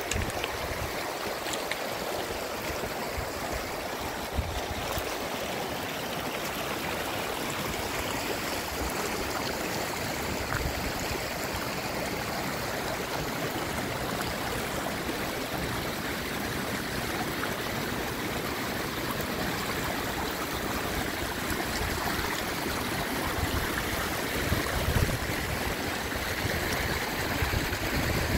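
Muddy storm runoff flowing over rocks and gravel, a steady rushing water sound that grows a little louder toward the end.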